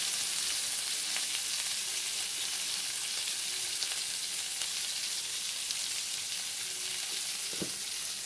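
Chopped tomato, onion and ginger-garlic paste sizzling steadily in hot oil in a steel kadai.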